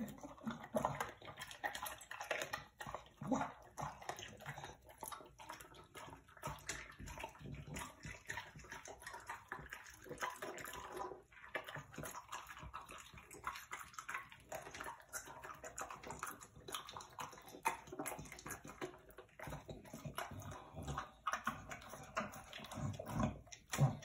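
English bulldog eating raw sardines: wet, irregular chewing and smacking, with many short clicks of jaw and mouth.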